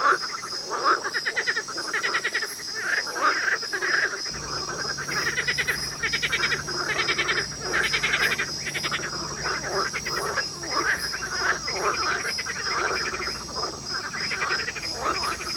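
Dense chorus of many frogs calling at once, overlapping pulsed croaks and trills, with a steady high pulsing tone running above them. A low hum comes in about four seconds in and fades out again later.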